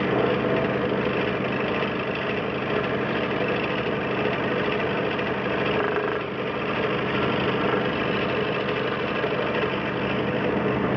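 DeWalt DW788 scroll saw running steadily, its motor and reciprocating blade giving an even hum with a brief slight dip about six seconds in.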